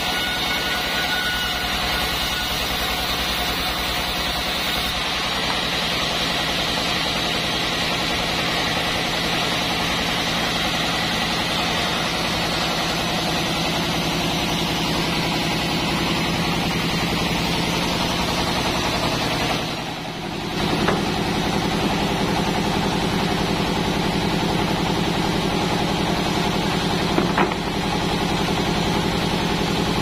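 Sawmill band saw machinery running steadily, a loud continuous engine-like drone. About 20 seconds in the sound dips and then settles into a lower, deeper hum, and two sharp knocks come near the end.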